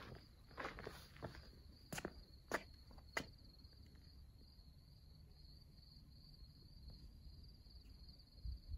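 Crickets trilling steadily and faintly in the night. A few footsteps scuff and knock on rock during the first three seconds.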